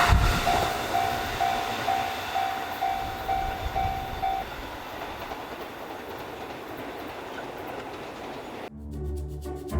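Train noise from a passing JR Sobu Line train dies away while the level crossing's warning bell keeps ringing, about two dings a second, then falls silent about four seconds in. Music starts near the end.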